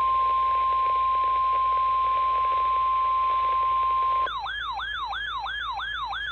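NOAA Weather Radio 1050 Hz warning alarm tone: one loud, steady pitch over radio hiss, the signal that a warning message follows. About four seconds in it cuts off and a fast electronic siren takes over, whooping about three times a second.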